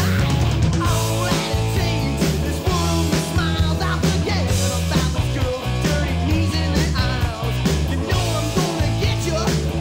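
Rock band playing live, with electric guitar.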